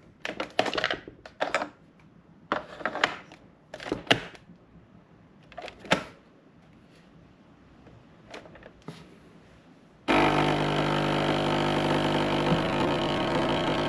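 Capsule coffee machine: scattered clicks and knocks as it is handled, then about ten seconds in its pump starts with a sudden, steady buzz.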